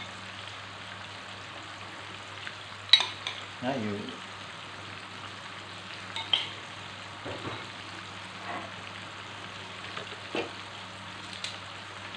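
Chicken pieces frying in sauce in a pan, a steady sizzling hiss under a low hum. A few sharp clinks of a spoon against the sauce bowl and pan, the loudest about three seconds in, and tongs moving in the pan near the end.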